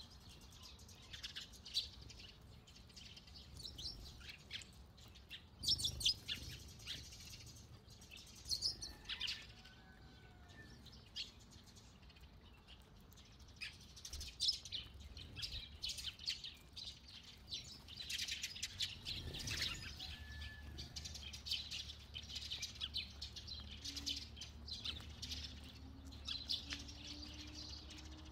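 A flock of Eurasian tree sparrows chirping busily: a constant stream of short, high chirps that grows thickest a little past the middle.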